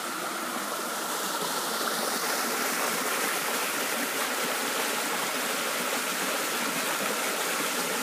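Shallow, rocky creek running over stones: a steady rush of water that grows a little louder about two seconds in.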